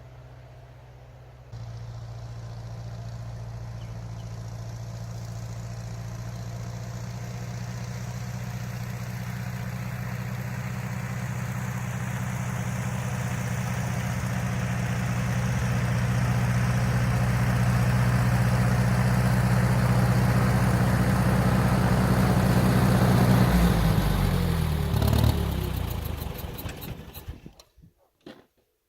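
Massey Ferguson 50 tractor engine idling steadily and growing gradually louder. Near the end it is shut off, slowing down and stopping within a few seconds.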